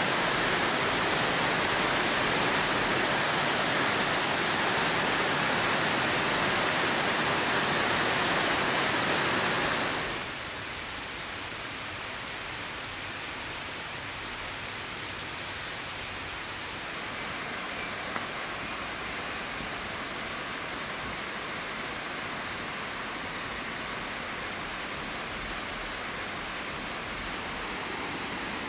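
Forest stream running steadily, which cuts off abruptly about ten seconds in, leaving a fainter steady background with one small click.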